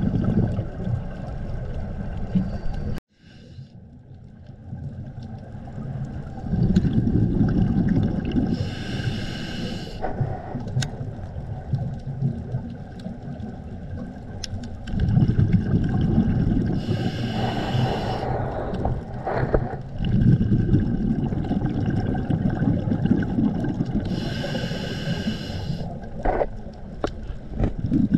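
Scuba breathing through a regulator, heard underwater: a loud, low bubbling rumble of exhaled bubbles alternating with a whistling hiss as the diver inhales, three breaths about eight seconds apart. The sound drops out suddenly about three seconds in and swells back.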